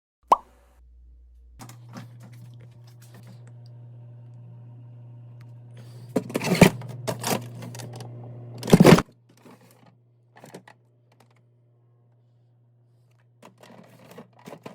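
Light clicking and clattering of containers and items being moved around, over a steady low hum. The clatter is loudest between about six and nine seconds in.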